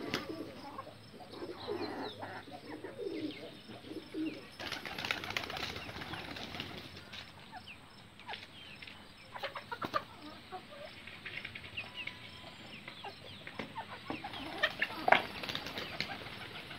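Chickens and ducks feeding in a pen: soft low calls in the first few seconds, then short bursts of pecking, scratching and bill clicks, the loudest near the end.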